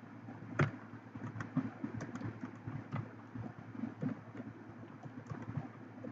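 Typing on a computer keyboard: irregular key clicks, the loudest about half a second in, over a low rumble.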